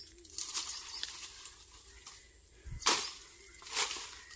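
A billhook chopping into brush and woody stems: several sharp strikes, the loudest near three seconds in with a dull thud under it.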